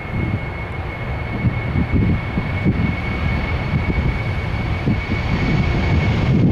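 Airliner engines running, a steady high whine over a deep, uneven rumble; the whine fades away near the end.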